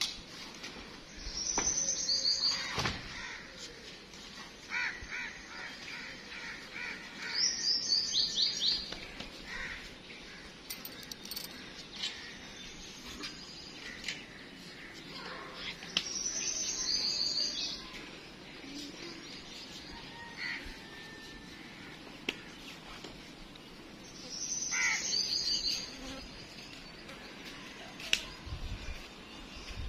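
A small songbird's call: a quick run of high chirps, repeated four times about eight seconds apart, with a few light knocks between them.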